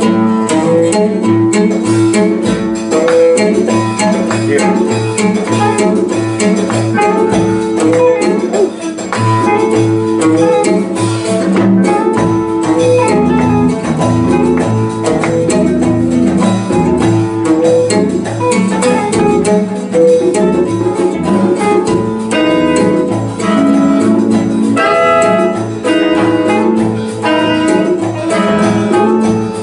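Live jazz band playing: saxophone and trumpet over piano, guitar and conga drums, with a walking bass line underneath.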